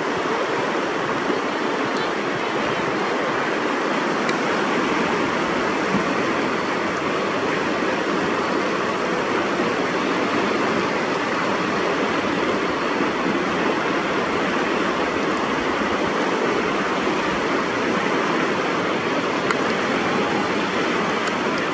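Whitewater of a river rapid rushing steadily, a constant even roar of broken water around a canoe surfing a standing wave.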